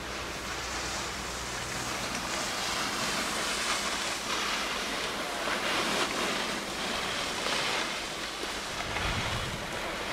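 Slalom skis carving quick turns on hard-packed snow: a hissing scrape that swells and fades with each turn, roughly once a second.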